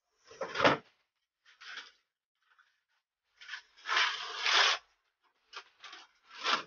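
Gift-wrapping paper being torn and pulled off a cardboard box in several separate rips and rustles, with silence between them. The longest and loudest rip comes a little past halfway.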